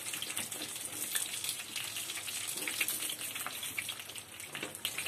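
Chicken wontons deep-frying in hot oil in a pan: a steady sizzle with many fine crackles.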